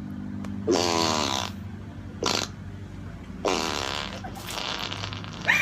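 Fart sound effects played from a soundboard: a long one about a second in with a falling pitch, a short one around two seconds in, then another longer one that trails off. Laughter breaks out at the very end.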